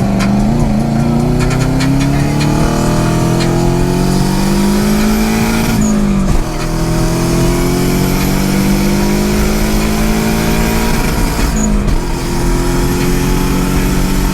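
Turbocharged Subaru, four turbo whistles stuffed into its exhaust, accelerating hard through the gears. Engine pitch climbs for about six seconds, drops at a shift, climbs again, and drops at a second shift near twelve seconds. A thin, very high whistle rises and holds above the engine after each shift.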